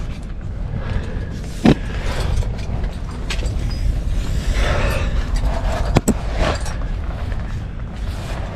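Steady wind rumble on the microphone, with a few sharp metallic clicks, about two seconds in and again at six seconds, and some scraping as a climber's gear rack and body move against the sandstone chimney walls.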